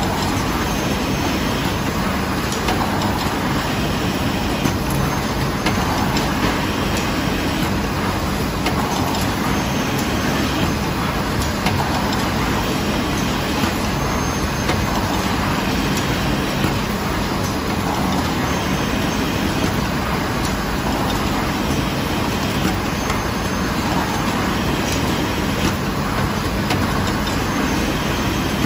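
Cotton swab packaging machine running: a steady mechanical din with a pattern that repeats about every two seconds.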